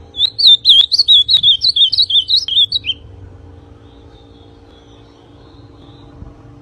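Young male ultramarine grosbeak singing one fast warbled phrase of sliding whistled notes, about three seconds long, then falling silent. A faint steady hum is left underneath.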